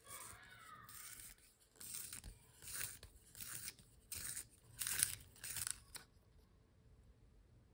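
Wooden pencil being turned in a Milan Compact handheld pencil sharpener, the blade shaving the wood in a run of short scraping strokes, about one and a half a second, stopping about six seconds in. It sharpens well.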